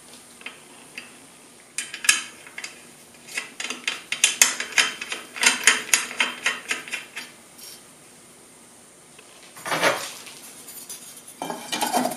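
Small steel hardware (nuts and spacers) clinking and rattling as it is handled and fitted onto a bench grinder's arbor: a quick run of metallic clicks for several seconds, a short lull, then more clatter near the end.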